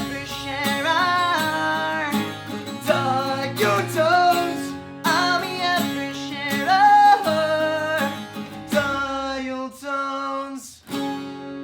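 Acoustic guitars strumming the closing bars of a pop-punk song, with a voice singing a melody over much of it. The playing thins out, and a last chord is struck near the end and left to ring.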